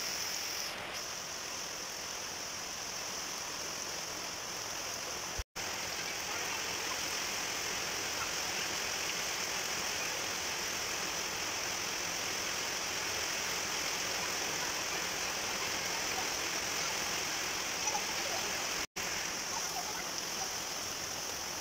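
Heavy rain pouring steadily onto a wet flat rooftop, an even hiss of water. The sound cuts out for an instant twice.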